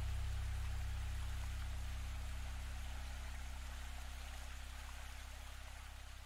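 A low sustained drone under a steady hiss like running water, slowly fading out.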